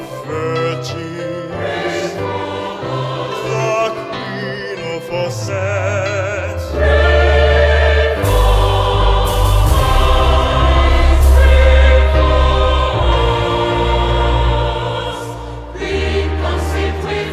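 Choral music: a choir singing with wide vibrato over a deep bass accompaniment, swelling louder about seven seconds in.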